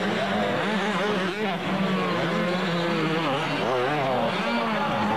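Motocross motorcycle engines revving, the pitch rising and falling again and again as the bikes work up the dirt track.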